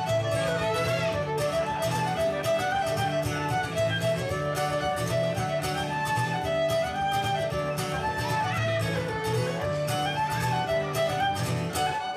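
Live fiddle melody over strummed acoustic guitar, with a steady beat.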